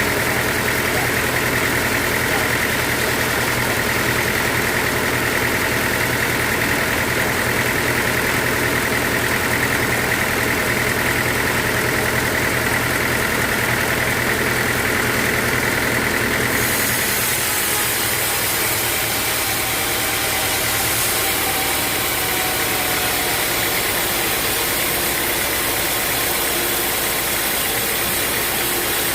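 Sawmill machinery running steadily. About halfway through, the sound changes: a strong mid-pitched drone fades and a brighter, higher hiss takes over.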